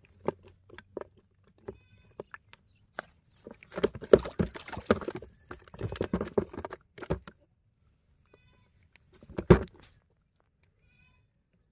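Freshly caught fish slapping and knocking against a plastic tub as they are handled: scattered knocks, then a few seconds of dense thrashing midway and one more short burst near the end.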